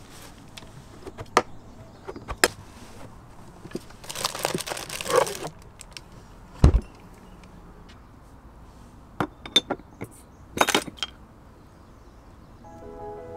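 Camping gear being handled: scattered light clinks and clicks, a rustling scrape about four seconds in, and a dull thump just before seven seconds. Soft music comes in near the end.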